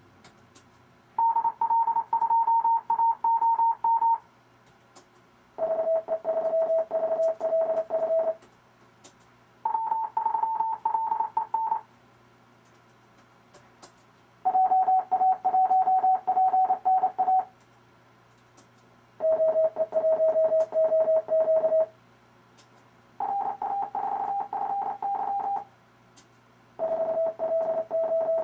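RufzXP Morse code trainer sending amateur radio callsigns as fast, keyed sidetone beeps. Seven callsigns come one after another, each lasting two to three seconds and each at a different pitch, with short pauses and faint clicks between them.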